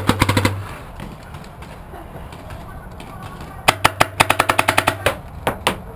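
Paintball markers firing rapid strings of shots at close range. There is a short burst right at the start, then a longer run of about ten shots a second from about three and a half seconds in until near the end.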